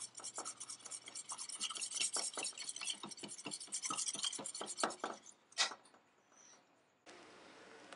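Wire balloon whisk beating an egg and milk custard mixture in a stainless steel bowl, its wires scraping and clinking against the metal in quick, even strokes. The whisking stops about five seconds in, with one last sharper clink.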